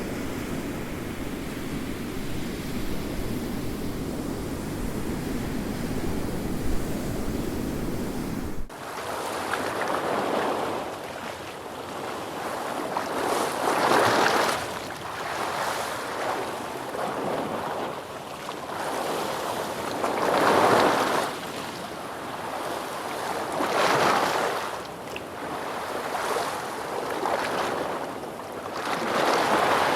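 Ocean waves. For about the first nine seconds there is a steady low roar, then an abrupt cut to surf that swells and washes in every few seconds, each wave rising to a loud hiss and then fading.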